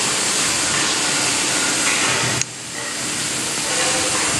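Hydraulic riveting machine's power unit running with a loud, steady hiss that drops sharply about halfway through and then builds back up.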